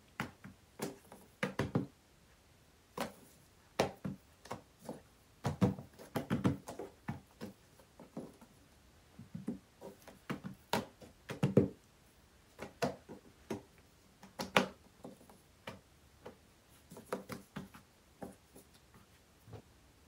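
Hands lifting and folding a sheet of oiled yeast dough on a plastic oilcloth table: irregular soft taps, light thuds and handling noises.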